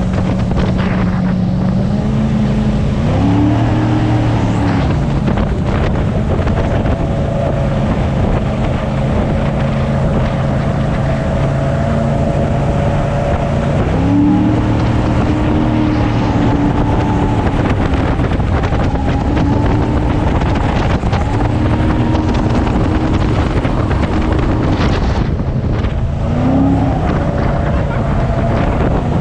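Jet boat engine running at speed, its pitch rising and falling several times as the throttle is worked, over the rush of water and wind buffeting the microphone.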